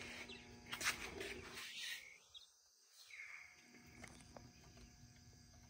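Faint workshop quiet broken by a few light clicks of the aluminium sinker mold and locking pliers being handled while the poured lead sets.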